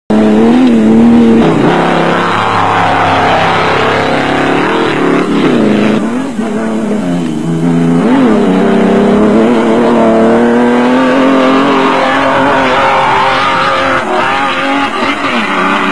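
Off-road racing vehicles' engines running hard at high revs as they pass. The engine pitch drops and climbs again several times, with gear changes and passing vehicles.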